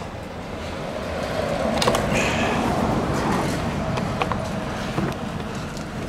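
A motor vehicle passing, its noise swelling for about two seconds and then fading away. A few light plastic clicks come from the leaf blower's air filter cover being handled.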